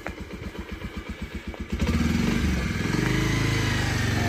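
Bajaj Pulsar motorcycle's single-cylinder engine idling with a quick, even putter. About two seconds in it opens up and runs louder and steadier as the bike pulls away.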